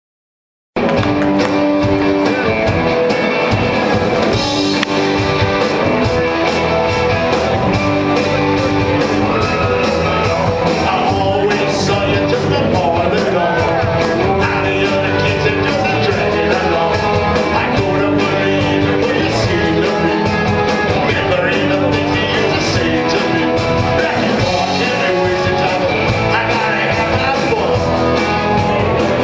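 Live rock band playing, a male singer over electric guitars, recorded from the audience. The music cuts in abruptly about a second in.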